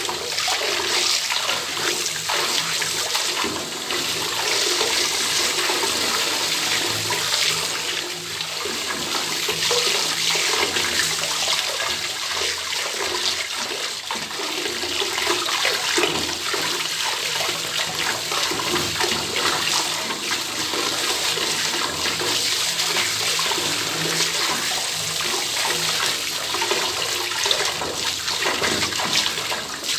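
Bathtub tap running open, water pouring steadily into the tub.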